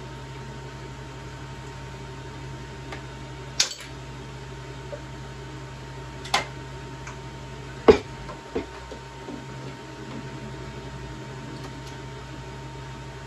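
Office-chair parts being handled and set down: about four sharp clacks of hard pieces knocking together, the loudest a little past the middle, as the gas-lift cylinder and five-star base are moved into place. A steady low hum runs underneath.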